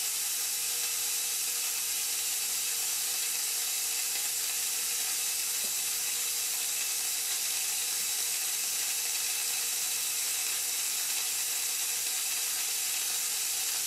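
Fog machine hissing steadily as it pumps fog into the room.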